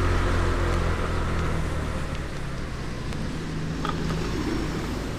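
Small motorbike engine running while riding on a wet street, with wind and tyre noise, the engine sound easing and quietening as the bike slows. A large vehicle's engine hum passes close by about four seconds in.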